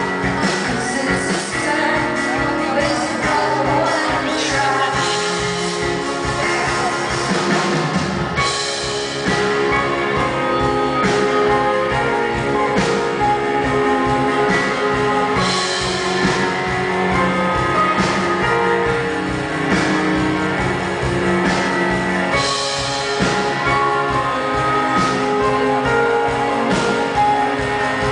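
A woman singing live to her own piano accompaniment, with steady piano chords.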